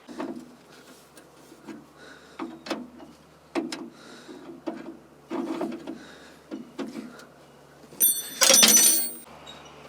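Scattered metal clanks and knocks from work around the batteries and cables, then near the end a loud, harsh burst lasting about a second as the starter is bumped on the Caterpillar 977L's seized engine, which does not turn over.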